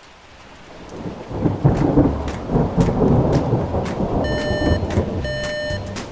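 Heavy rain with rumbling thunder, fading in over the first second or so and then loud, with sharp crackles through it. Two short beeps sound about four and five seconds in.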